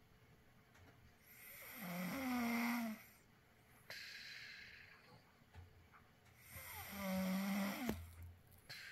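A sleeping person snoring: two drawn-out snores about five seconds apart, each carrying a steady buzzing tone, with softer breathing between them.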